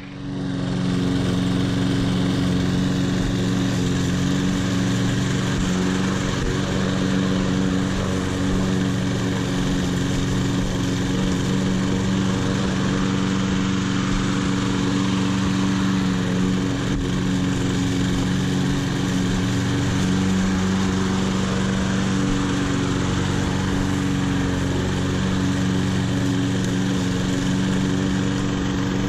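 Cub Cadet SC900 23-inch self-propelled walk-behind lawn mower, its 190cc engine running steadily under load while mowing grass.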